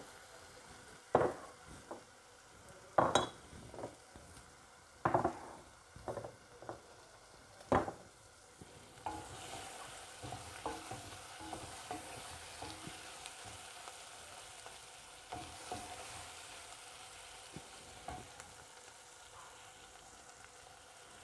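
Chicken breast pieces frying in a nonstick pan and stirred with a wooden spatula. Sharp knocks and scrapes of the spatula against the pan come several times over the first eight seconds or so, then a steady sizzle with light scraping.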